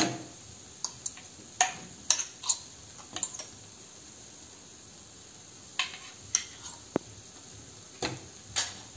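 A metal spoon scraping and tapping against a steel bowl, knocking ground spice powder out into a pan: a run of sharp clinks, with a quiet stretch of about two seconds in the middle.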